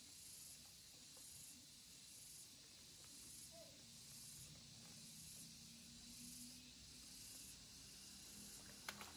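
Near silence: a faint high outdoor hiss that pulses a little faster than once a second, with one small click just before the end.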